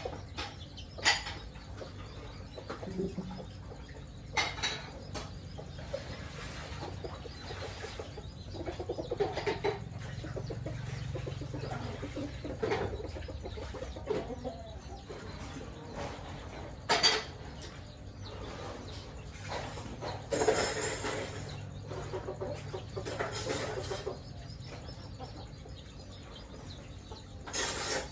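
Chickens clucking on and off, with a few sharp brief taps or clicks scattered through.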